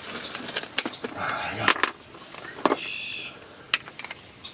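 Metal tools and sockets clinking and clacking together in a series of sharp, separate clicks, with a brief high-pitched squeak about three seconds in.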